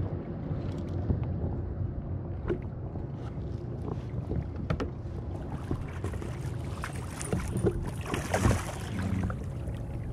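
Water sloshing against a kayak hull with wind on the microphone and scattered small clicks and knocks as a hooked king mackerel is reeled in on a spinning rod. From about seven seconds in comes a louder splashing hiss as the fish is gaffed at the surface.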